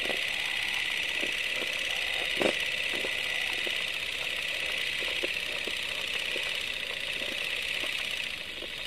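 Old film-soundtrack noise over a countdown leader: a steady high hiss with scattered crackles and pops, the loudest pop about two and a half seconds in.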